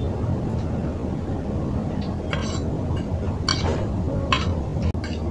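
Metal fork clinking and scraping against a plate while picking up noodles: a handful of short clinks in the second half, over a steady low rumble.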